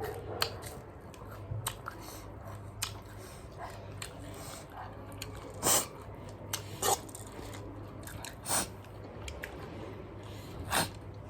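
A person biting and chewing cabbage close to the microphone: a run of small crunches, with four loud crunching bites spread over the second half.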